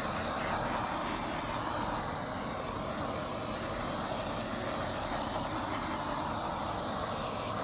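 Handheld torch flame hissing steadily as it is played over wet acrylic pour paint to bring up air bubbles.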